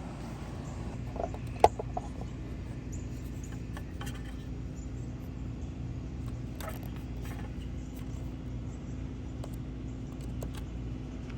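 A steady low mechanical hum, with a sharp click about a second and a half in and a few fainter clicks and rustles after it, fitting the test and reset buttons of an outdoor GFCI outlet being pressed.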